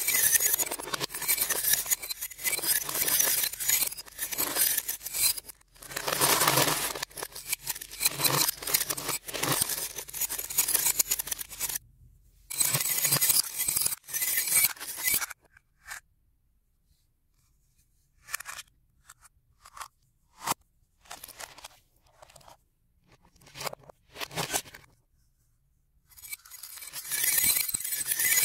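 Glass marbles clattering and clinking down the bars of a toy xylophone into a plastic tub. The clatter comes in dense rattling stretches, thins to scattered single clicks for about ten seconds in the middle, and builds again into a heavy clatter near the end.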